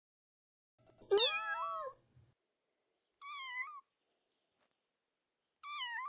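Kitten meowing three times, each a short high meow. The first is the loudest and longest, rising and then falling in pitch.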